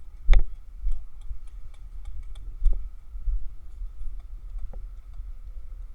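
Irregular sharp clicks and knocks, one much louder than the rest about a third of a second in, over a low rumble and a faint steady whine.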